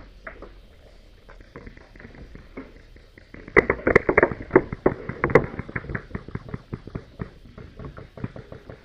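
Paintball markers firing: a rapid volley of sharp pops about a third of the way in, then scattered shots.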